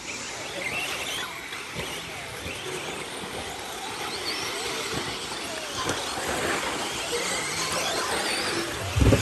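Several 1/10-scale RC buggies racing on a dirt track: their motors whine, rising and falling in pitch, over a steady rush of tyre and track noise. A loud low thump comes right at the end.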